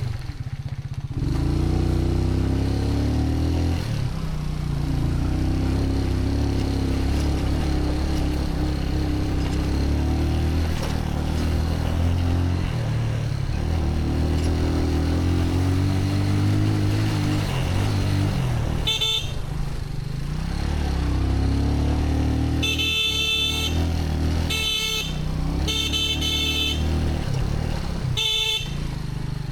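A motor vehicle's engine running steadily while under way. In the last third its horn honks several short times.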